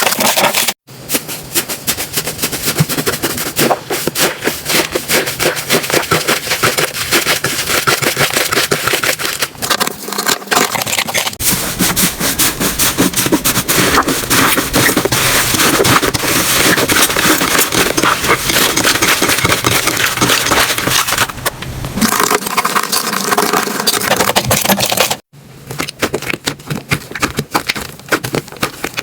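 Slime being squeezed, poked and pressed by hand, giving a dense run of crackling clicks and pops. The sound breaks off sharply and starts again about a second in and near the end.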